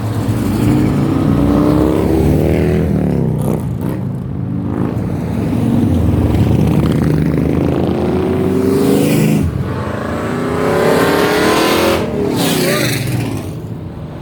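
Loud cars driving off one after another, their engines revving up in several rising pulls as they accelerate past.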